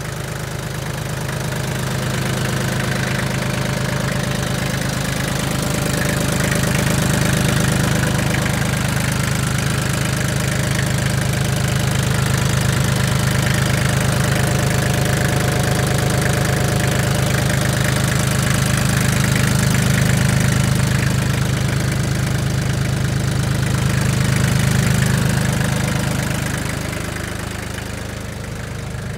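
ISEKI TL2701 compact tractor's diesel engine idling steadily.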